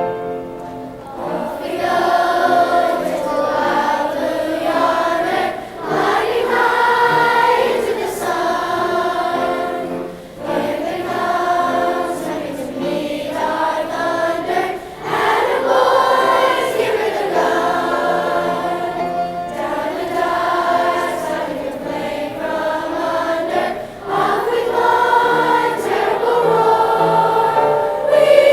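A choir singing, in phrases of several seconds with short breaks between them.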